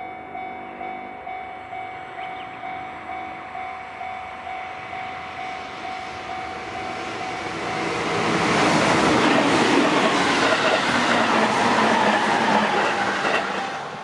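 A level-crossing warning alarm ringing about twice a second. Then a JR Central 313 series 8000 subseries electric train passes close by from about eight seconds in, its wheels and running gear rushing loudly over the rails and covering the alarm. The train noise falls away just before the end.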